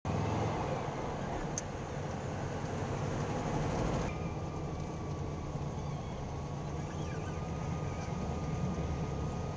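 A car's engine running steadily with road noise at low speed, heard from inside the cabin. About four seconds in the hiss thins out and a faint steady whine comes in.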